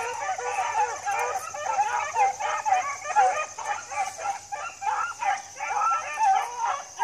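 A pack of beagles baying together, many dogs' voices overlapping in a continuous chorus of bays and yips.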